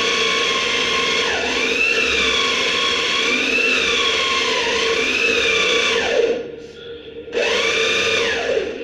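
Corded electric drill running into solid narra wood, its pitch sagging and recovering as the bit loads. It stops about six seconds in, then starts again about a second later for another short run.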